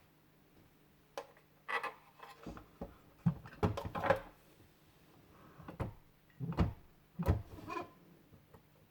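Hands handling a 1:18 diecast model car and its packaging: irregular small clicks, taps and brief rubbing noises, several quick ones in a row around the middle, over a faint steady hum.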